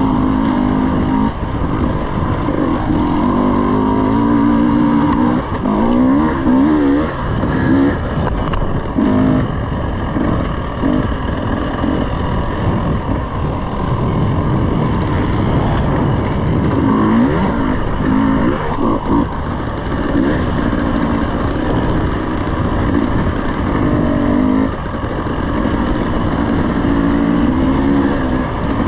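300cc two-stroke dirt bike engine revving up and down over and over as the bike is ridden along a trail.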